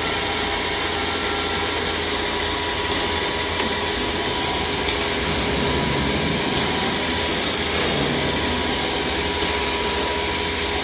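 CNC router spindle machining a wooden panel, with its dust extraction running: a steady mechanical noise with a constant hum, and one sharp click about three and a half seconds in.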